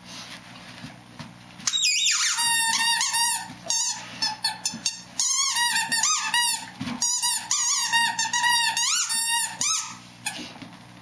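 Dog chewing a rubber squeaky toy, squeaking it over and over: rapid high squeaks several times a second, starting about two seconds in, with a short break in the middle, and stopping shortly before the end.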